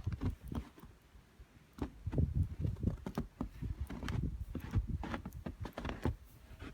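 Footsteps crunching through deep snow: irregular steps with dull thuds and crisp crunches, pausing briefly about a second in.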